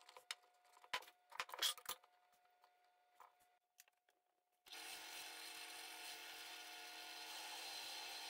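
A few short scrapes and taps as the wood is marked out. About halfway through, a benchtop drill press starts running and keeps up a steady hum as its twist bit bores into a wooden block.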